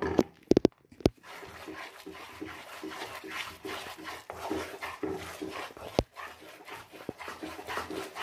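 Wooden spatula stirring and scraping thick besan paste roasting in ghee in a nonstick kadhai: a steady, rhythmic scraping swish, with a few sharp knocks in the first second.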